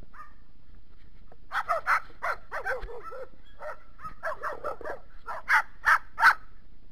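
Dogs barking in quick runs of short barks starting about a second and a half in, with three loudest single barks near the end.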